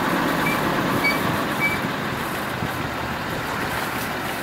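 Dodge Ram dually pickup with a truck camper aboard driving slowly: a steady rumble of engine and road noise. A few short, high chirps come in the first two seconds.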